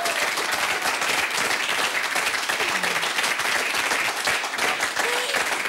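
Studio audience applauding: many hands clapping steadily.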